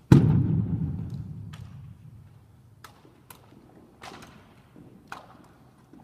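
A heavy thud just after the start, like drill rifles slammed down on a hard floor together, ringing out in a large hall for a couple of seconds, followed by about five light clicks and taps from rifle handling.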